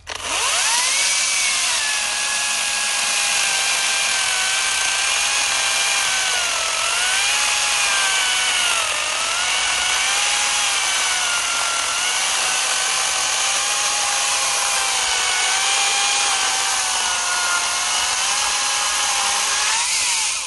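Makita XCU06Z 18-volt brushless top-handle chainsaw spinning up and cutting through a thick white birch log. Its electric motor whine dips in pitch several times as the chain loads up in the cut, then stops abruptly.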